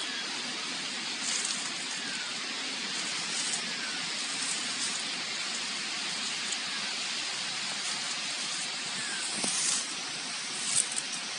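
Short-beaked echidna rustling and scratching in dry leaf-litter mulch as it forages for ants: a few faint crackles, the loudest two near the end, over a steady background hiss.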